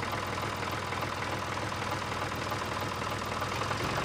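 Steady idling tractor-engine sound belonging to a toy remote-control tractor, a low even chug with a thin hum above it, unchanging throughout.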